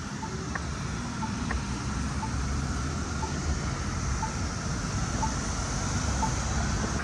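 Polara N2 crosswalk push button's locator tone: a short beep about once a second, the signal that lets blind pedestrians find the button while the walk sign is off. Steady traffic noise runs underneath.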